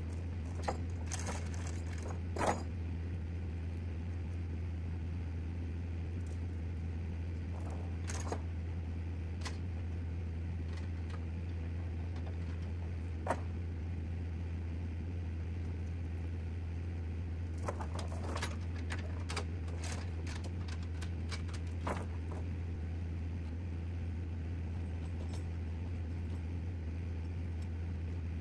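A vehicle running with a steady low drone, over which come scattered metallic jingles and rattling clicks, bunched near the start and again around two-thirds of the way through.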